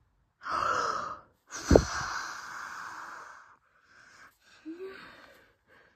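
A person blowing out birthday candles: a short puff, then a longer blow that starts with a thump of breath on the microphone and fades out.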